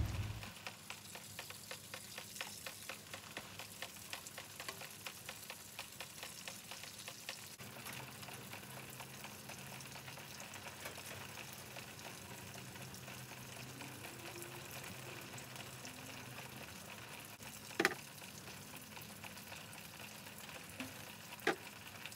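Faint crackling and rustling of PVC pipes and a bungee cord being handled against a chain-link fence, with two sharp clicks late on.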